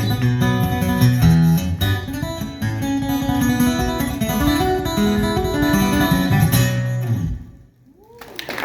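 Acoustic guitar played live, strummed and picked over a moving bass line; the tune ends about seven seconds in and the sound drops away, with a new noisy sound starting just before the end.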